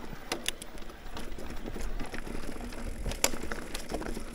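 Mountain bike riding over a dirt trail: tyres on the ground and the bike rattling over bumps, with scattered sharp clicks and knocks, the sharpest about three seconds in.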